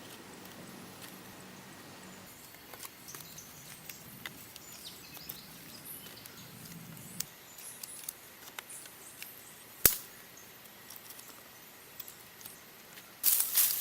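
Quiet outdoor background with faint bird chirps and scattered small ticks, and one sharp click about ten seconds in. Loud crunching and rustling starts just before the end.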